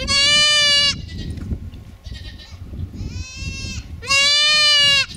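Mini Nubian goats bleating: two loud, drawn-out bleats of about a second each, one at the start and one near the end, with a fainter, shorter call between them.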